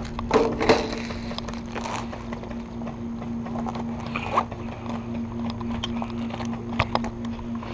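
Airsoft magazines being handled and stowed: a few sharp plastic-and-metal clacks, the loudest two within the first second, more about four seconds in and near the end, over a steady low hum.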